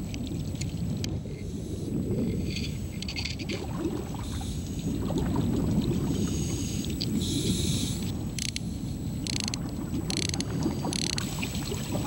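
Underwater ambience: a steady low rumble of moving water with irregular short hissing bursts, the sound of divers' exhaled bubbles.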